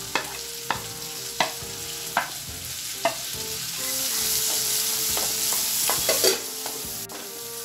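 Chopped onions sizzling in hot melted butter in a nonstick pan as they are sautéed, with a wooden spatula stirring and knocking against the pan several times.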